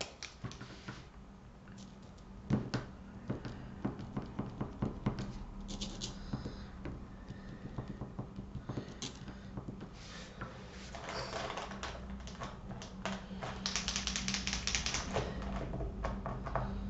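Small irregular clicks and taps of paint pens and painted stones being handled on a cutting mat, over a low steady hum. From about eleven seconds in, a longer clattering rustle of plastic pens being picked through.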